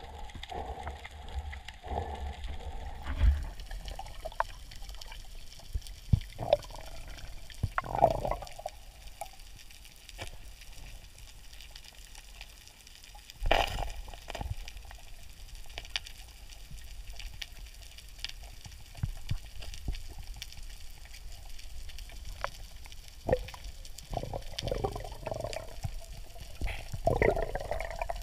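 Sea water moving and sloshing around the camera, with irregular small clicks and knocks throughout and one louder knock about halfway through.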